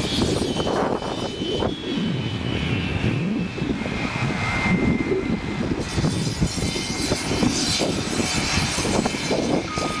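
Case 430 skid steer's diesel engine running under load, its pitch rising and falling as the machine drives and turns, with a faint high whine about halfway through.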